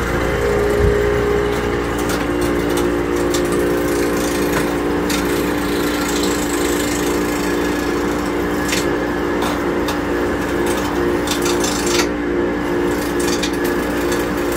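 A small wood lathe running with a steady motor hum, spinning a wooden bat blank that runs off-centre and wobbles. A turning tool scrapes and knocks against the wood at irregular moments.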